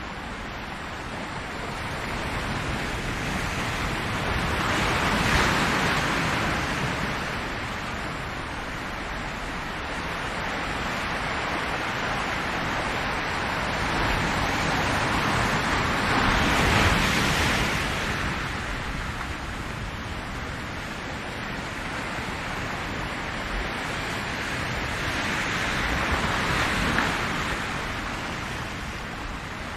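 Ocean waves washing onto a shore in slow, steady surges: three waves swell up and break over the span, roughly ten seconds apart, with a constant wash of surf between them.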